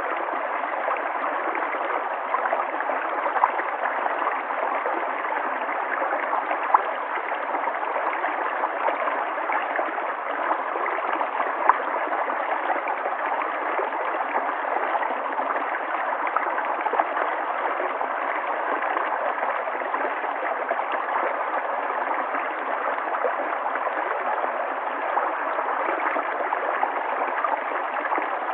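River water flowing steadily, gurgling, with a few brief louder gurgles.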